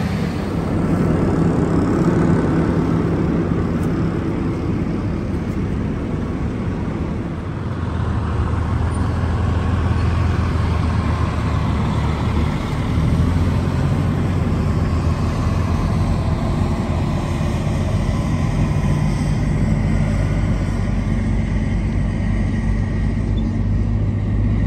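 Heavy diesel machinery running steadily. At first it is a self-propelled forage harvester chopping corn for silage. About seven seconds in, the sound changes to a lower, steady engine drone from the trucks and tractor working the silage pile.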